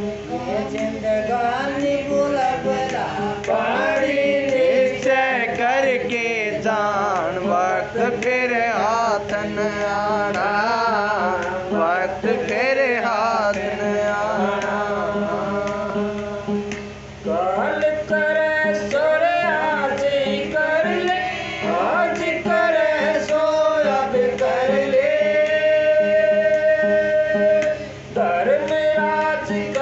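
Male voices singing a devotional shabad (hymn), led by one voice into a microphone with long held, ornamented notes over a steady drone, with brief breaks between phrases.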